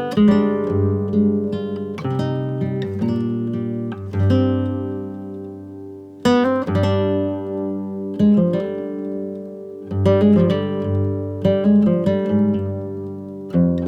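Background music on acoustic guitar: plucked notes and chords that ring out and fade, a fresh strum every second or two.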